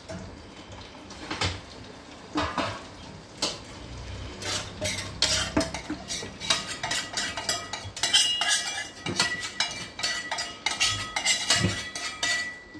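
A metal spoon stirring dal in a metal pot, clinking and knocking against its sides many times. The strikes get denser and set the metal ringing in the second half.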